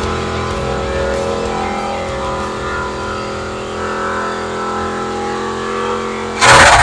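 LS V8 in a Ford F-100 pickup held at steady high revs in a burnout, its rear trailer tires spinning on the pavement. Near the end a short, very loud rush of noise covers it.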